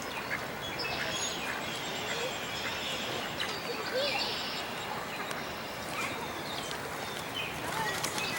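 Mallard ducklings peeping, many short high calls coming in quick clusters over a steady background hiss.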